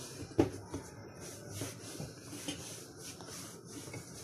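One sharp knock about half a second in, then faint rubbing and scuffing of hands working over a floured wooden tabletop.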